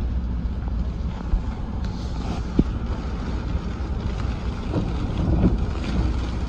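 Steady low rumble of a moving vehicle with wind on the microphone, and a couple of faint knocks.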